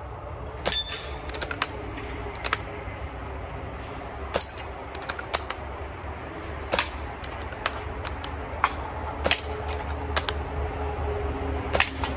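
Air rifle being fired repeatedly at targets: a series of sharp snaps and clicks, irregularly spaced about a second apart, some coming in quick pairs.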